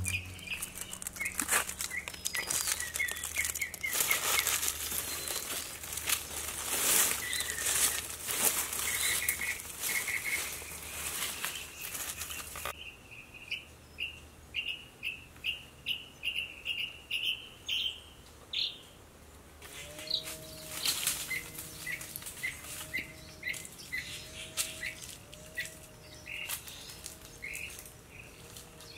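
Forest birds calling with repeated short rising chirps, over rustling and crackling of dry leaves and brush during the first half. In the second half a lower call repeats about once a second alongside the chirps.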